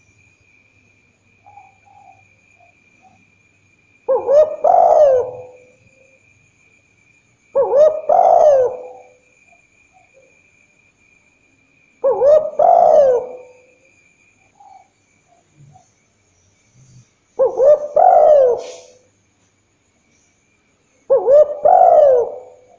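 Spotted dove cooing: five phrases of a few low notes each, about four seconds apart.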